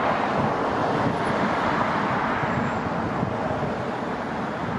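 Steady road traffic noise from cars passing on a city street, a continuous rushing hum that eases slightly near the end.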